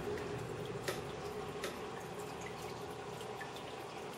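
Aquarium water trickling and dripping steadily over a faint steady hum, with small drips throughout and two sharper drips about one and one and a half seconds in.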